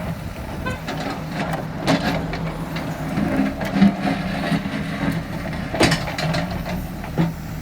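Heavy engine of construction machinery running steadily at idle, with a few short sharp knocks over it.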